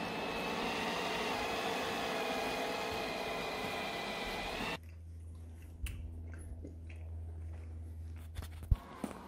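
Kyvol Cybovac E30 robot vacuum running with a steady whirr and a wavering whine as it drives along. About halfway through it cuts off sharply, leaving a quieter low hum with a few light clicks and one sharp tap near the end.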